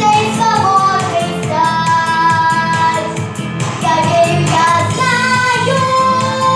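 A young girl singing a pop song with held, gliding notes over an instrumental backing track with a steady beat.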